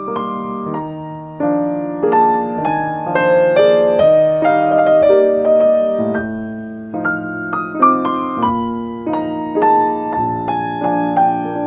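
Background solo piano music: a steady run of soft chords and melody notes.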